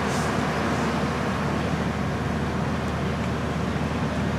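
Steady mechanical running noise, a constant low hum under an even hiss, from car wash machinery.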